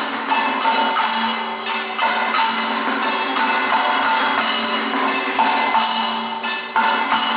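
Kathakali accompaniment music: ringing bells and metal percussion struck in repeated strokes, their tones ringing on between strokes.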